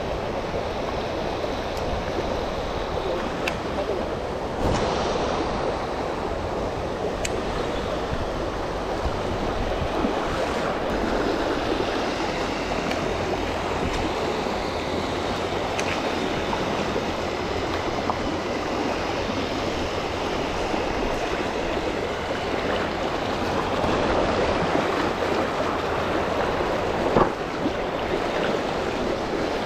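Fast, shallow river water rushing over rocks, a steady rush, with a few short clicks.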